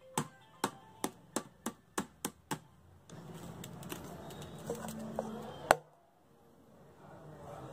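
A knife handle taps quickly on a stainless-steel plate and tray, about four light metallic taps a second, for the first two and a half seconds. A low steady hum follows, with a few soft clinks and one loud sharp metal knock about two-thirds of the way through.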